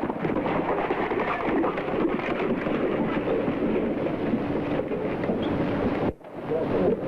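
A noisy crowd of men shouting and cheering in a commotion, heard through an old, hissy film soundtrack, with a brief drop about six seconds in.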